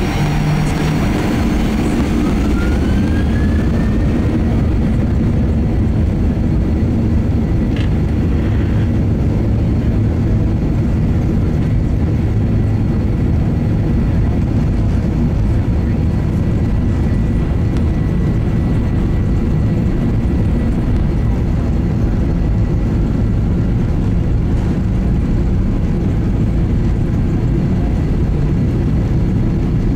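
Cabin noise of a Boeing 737-800 taxiing, its CFM56-7B jet engines running with a steady low rumble. A whine rises in pitch over the first few seconds, then holds steady.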